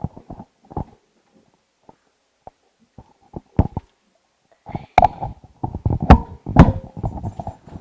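A series of irregular knocks and bumps, sparse at first, then denser and louder over the last three seconds, with brief squeaks among them.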